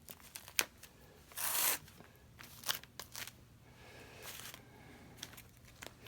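Small handling sounds while hook-side Velcro is pressed onto a glue-tacky foam pad: scattered sharp clicks and two short rustling scrapes, the first and loudest about a second and a half in.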